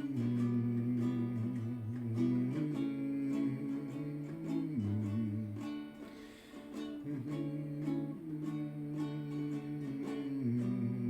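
Ukulele strumming chords, the instrumental introduction to the song, with the chords changing every second or two and a brief softer moment about halfway through.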